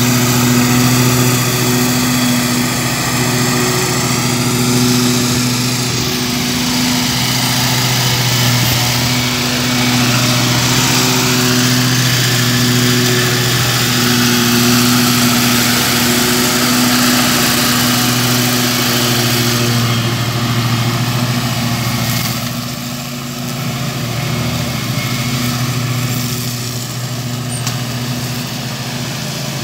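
Wright stand-on commercial mower running steadily at cutting speed with a constant engine hum and a hiss of blades and airflow. It grows fainter over the last several seconds as the mower moves away.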